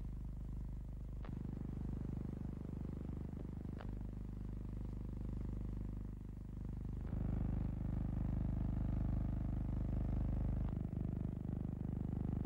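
A steady low hum with four short sharp clicks. The hum turns louder and fuller about seven seconds in.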